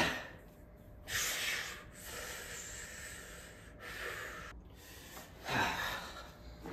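A man breathing heavily through his nose: a short hissing breath, a long one, then another short one near the end.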